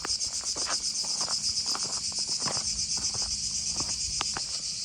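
A loud chorus of cicadas: a dense, high, fast-pulsing buzz that holds steady throughout, with a few faint footsteps underneath.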